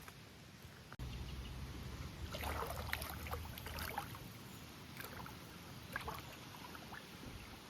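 River water splashing and gurgling close by, over a low steady rush of flowing water. The splashing is busiest about two to four seconds in, then thins to a few single splashes.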